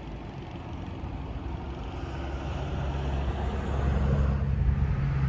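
A motor vehicle's engine running with a steady low hum. It grows louder from about halfway through, as if the vehicle is coming closer or working harder.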